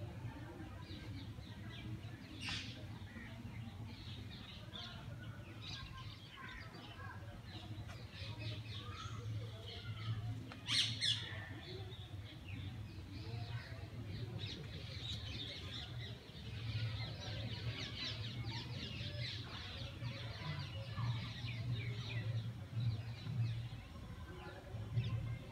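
Many small birds chirping and twittering, with two sharper, louder calls, the loudest about eleven seconds in. A low hum runs underneath.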